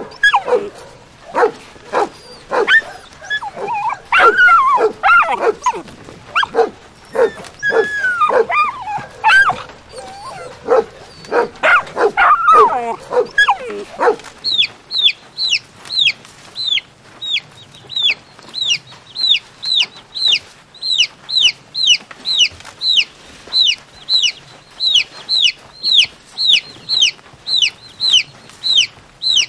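Several dogs whining and barking in short yips while begging for food. About halfway through this gives way to baby chicks peeping: high cheeps that slide downward, about two a second.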